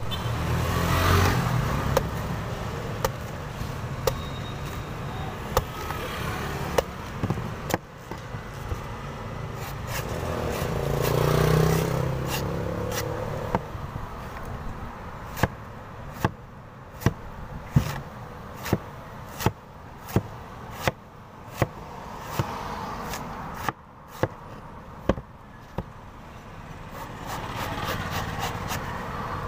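Heavy knife chopping and shaving the husk off a green coconut on a wooden board: a long series of sharp knocks, coming thick and fast through the middle. Street traffic passes behind, swelling three times.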